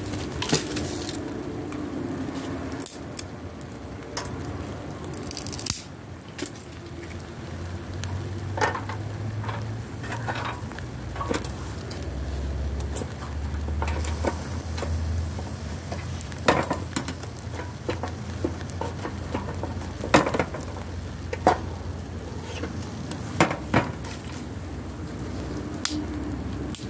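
Stuffed salmon sizzling in a wire grill basket over hot charcoal: a steady hiss broken by scattered sharp pops and crackles.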